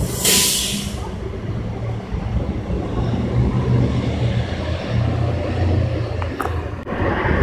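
City transit bus pulling away with its engine running in a steady low drone, with a short burst of air hiss in the first second and street traffic around it.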